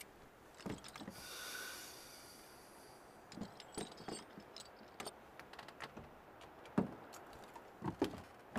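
Faint scattered clicks and knocks, with a brief jingling rattle about a second in. Near the end come a few louder knocks, footsteps on wooden stage boards.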